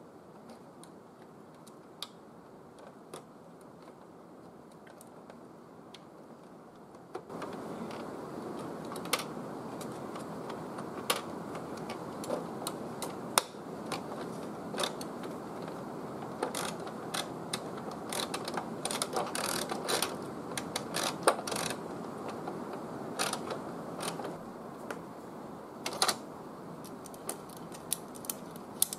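Sharp plastic clicks and taps of printer parts being handled and snapped into place as the pickup roller shaft is refitted in the printer chassis, many in the second half. Under them a steady background noise that gets louder about seven seconds in.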